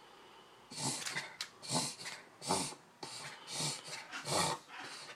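A puggle's noisy, rough breaths coming in a rapid run, about one a second, starting about a second in. This is a breathing episode that the owners call the worst he's ever had.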